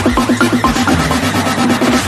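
Electronic dance music with a fast run of short repeating synth notes over a pulsing bass.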